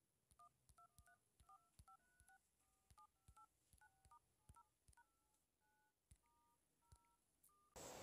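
Faint DTMF keypad tones of an LG G5 phone during a call: a quick run of short two-note beeps, one per key pressed, with light tap clicks. A steady hiss comes in just before the end.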